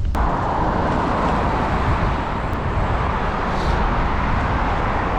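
Steady road and traffic noise, a continuous whooshing hiss that starts abruptly, over a low wind rumble on the microphone.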